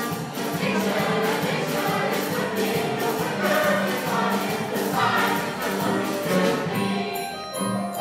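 Music with a choir singing over a steady beat, thinning out near the end.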